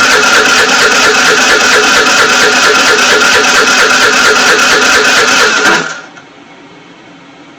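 Scooter's electric starter cranking the engine with a fast, even rhythm, the engine not catching: a scooter that won't start. The cranking cuts off abruptly about six seconds in, leaving a faint hiss.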